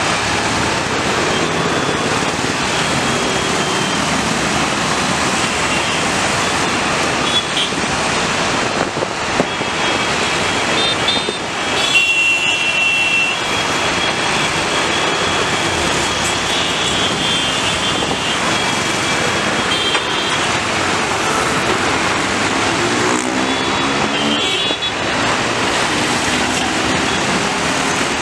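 Busy road traffic: motorcycles, cars and trucks running past, with several short horn toots. Near the end, one vehicle's engine can be heard speeding up.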